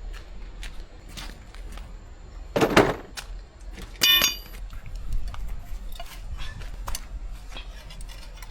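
Metal hand tools clinking and clattering as they are handled, with a louder clatter near three seconds and one clear ringing clink about four seconds in.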